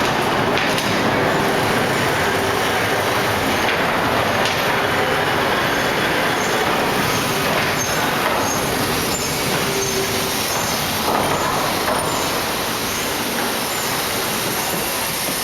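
Wuppertal Schwebebahn suspension railway train running slowly around the end-of-line turning loop, a steady rumble of its steel wheels on the overhead rail with a few brief, faint high squeals.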